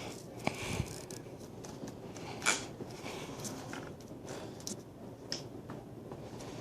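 Scattered light clicks, knocks and rustles of handling and movement, with a sharper click about two and a half seconds in and a low thump near the start.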